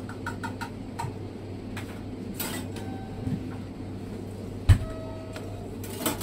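Small noodle-stand kitchen behind a counter: a steady low hum with scattered clinks and knocks, two short beeps, and a dull thump about halfway through.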